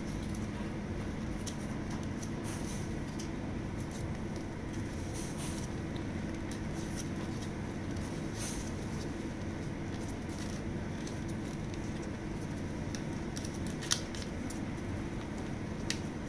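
Folded origami paper handled and tucked together: faint scattered rustles and crinkles over a steady background hum, with two short sharp ticks near the end.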